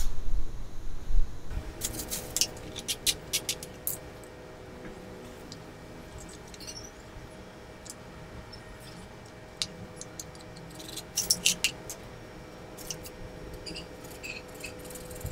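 Small clicks, taps and scrapes of plastic parts being handled: a blue plastic wheel and PVC pipe frame being worked by hand. The clicks come in clusters near the start, around the middle and toward the end, with low knocks in the first second and a faint steady hum underneath.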